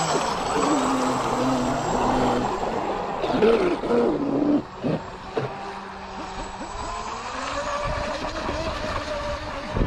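Radio-controlled speedboat running fast across open water, its motor note shifting in pitch as it turns and rising near the end.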